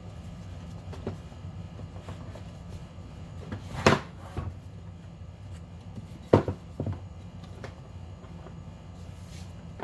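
Parts of an HVAC unit's housing and damper doors being handled and fitted together: a few sharp clicks and knocks, the two loudest about four and six and a half seconds in, over a steady low hum.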